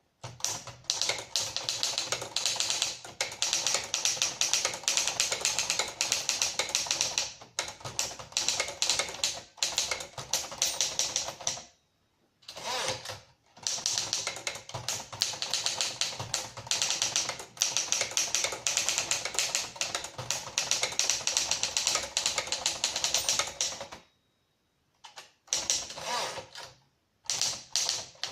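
1956 Remington Travel-Riter portable manual typewriter being typed on in fast, steady runs of key strikes. There are two short breaks near the middle and a longer pause about three-quarters of the way through.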